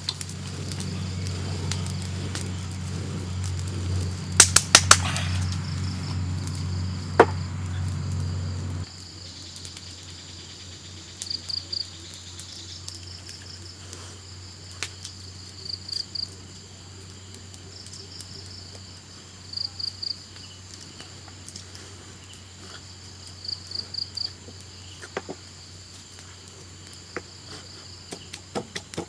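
A wood bonfire burning with a low rumble and a few sharp crackling pops. About nine seconds in it gives way to steady high insect chirring with short chirps repeating every few seconds.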